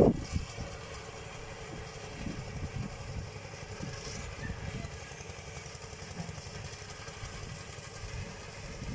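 A small engine running steadily with a low rumble.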